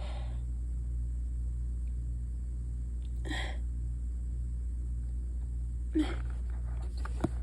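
A congested woman's short, breathy gasping breaths as she holds back a sneeze: one about three seconds in, then a quicker one with a small click near the end. A steady low hum runs underneath.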